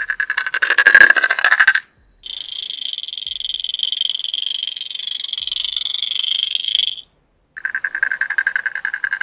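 Strike Pro Flap Jack 75S sinking lipless rattlin lure heard underwater as it is retrieved: its internal rattles make a fast, dense, buzzing clatter. About two seconds in the rattle breaks off and comes back higher-pitched. It stops again briefly after about seven seconds, and the lower rattle returns near the end.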